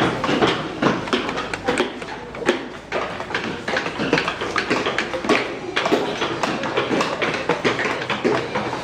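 Wood carvers' mallets tapping on chisels, many irregular overlapping taps several times a second.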